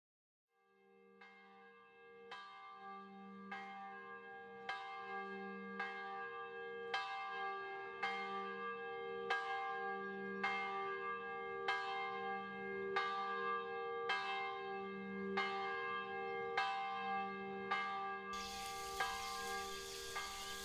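Evenly paced bell strikes, about one a second, each ringing on over a low sustained hum, fading in gradually from silence. Near the end a steady rush like running water joins in.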